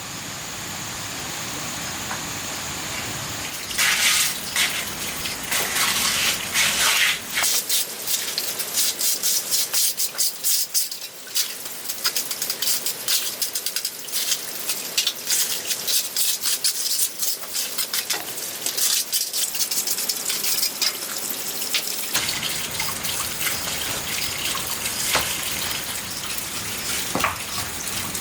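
Running water, steady at first, then splashing irregularly and sharply from about four seconds in, settling back to a steadier flow a few seconds before the end.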